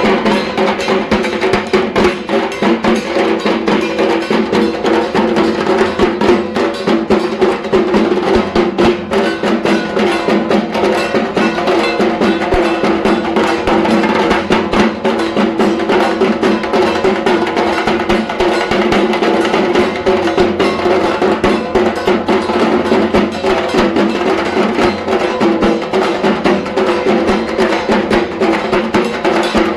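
Dhak, the large Bengali double-headed drum beaten with thin sticks, played in a fast, unbroken rhythm of dense strokes.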